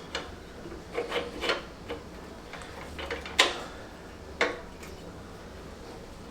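Pieces of sheet-metal engine tinware and a locating pin being handled and slotted into place, giving a series of light clicks and taps with a sharper knock about three and a half seconds in.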